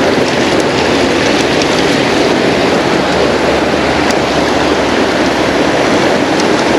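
Creek water rushing in a steady, loud stream.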